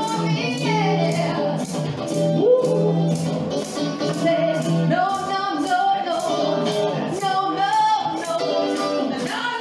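Live band music: women singing over an electric guitar, with a low held note for the first half and a steady ticking beat of a few strokes a second.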